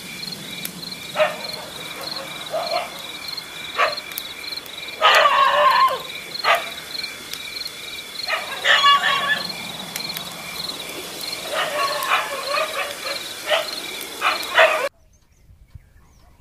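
Crickets chirping in a steady pulsing rhythm, with several louder short bursts of sound over them, the loudest about five seconds in. The sound cuts off abruptly near the end.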